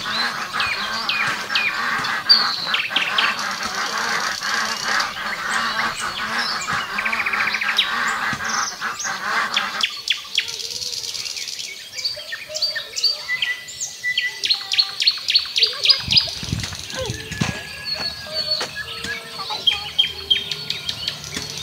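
Small birds chirping: a busy chorus of short, quick, repeated chirps. The mix of calls changes abruptly about ten and again about sixteen seconds in.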